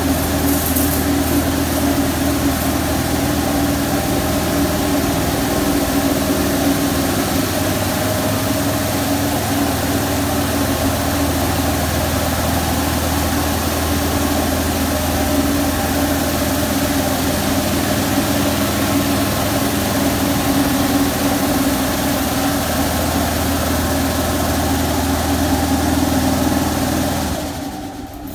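Touch-free car wash high-pressure side sprayers running: a steady pump hum under the hiss of water jets hitting the vehicle, cutting off about a second before the end.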